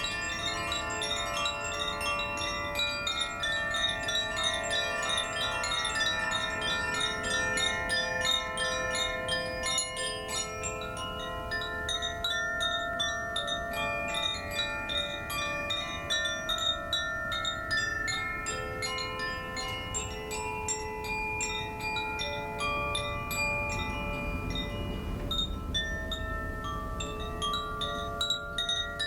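Koshi chimes played continuously, giving a dense stream of light tinkling strikes over many overlapping ringing tones at different pitches.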